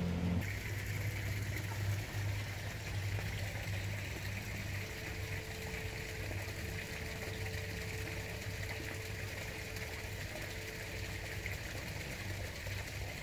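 Steady running water with a low hum underneath, and a faint held tone through the middle.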